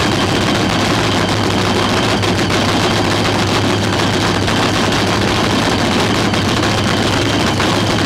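Nostalgia funny car's nitro-burning V8 idling, the loud, steady cackle of a nitromethane-fuelled engine through open zoomie headers.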